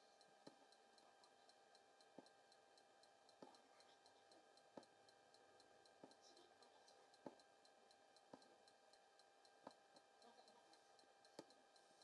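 Near silence with faint, sharp ticks about once every second or so at uneven spacing: a needle punching through fabric stretched taut in an embroidery hoop, one tick per stitch. A steady faint hum runs underneath.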